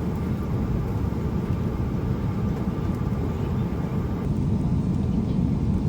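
Steady low rumble of jet airliner cabin noise.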